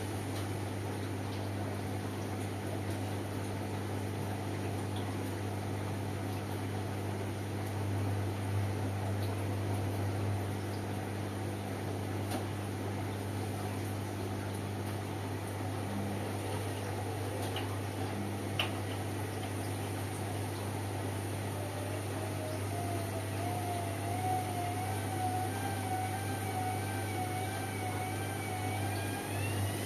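Indesit washing machine running with a steady hum. From about two-thirds of the way in, a wavering motor whine comes in and climbs sharply in pitch near the end as the drum speeds up. There is a single click partway through.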